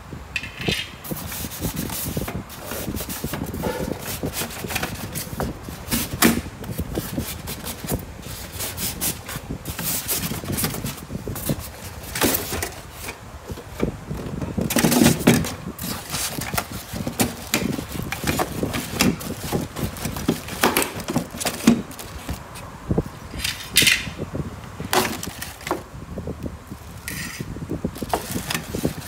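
Packaging being handled: polystyrene foam packing inserts and a cardboard box rubbing and knocking, with plastic wrapping crinkling, in irregular scrapes, rustles and sharp clicks.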